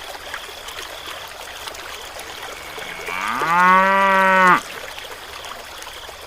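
A cow moos once, starting about three seconds in: a call that rises in pitch, holds for about a second and then cuts off.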